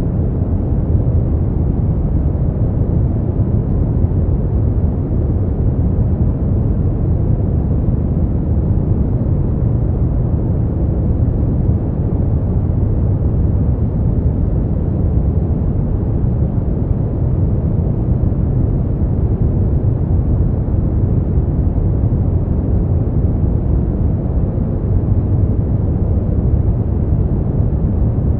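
Steady sleep-noise track: an even, deep rushing noise, heaviest in the low end and dull in the highs, unchanging throughout.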